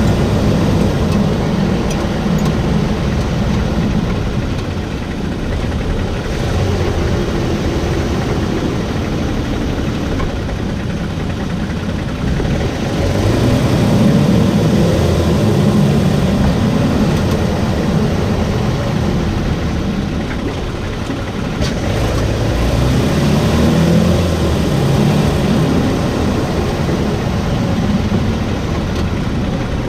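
2022 Toyota Tacoma running, a steady mix of engine and road noise with the loudness swelling and easing slowly.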